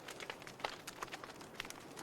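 Wood fire crackling in a fireplace: irregular sharp pops and snaps, several a second, over a soft hiss.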